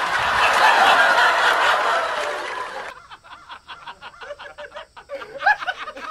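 Loud rushing noise, like wind buffeting the microphone, cuts off abruptly about three seconds in. Quieter short chuckle-like sounds and clicks follow.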